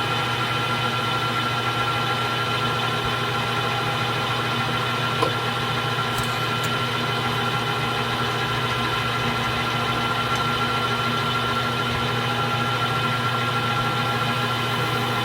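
Metal lathe running under power feed, taking a light finishing facing cut on the end of a spacer pin: a steady motor and gear hum with a constant whine, and a single small click about five seconds in.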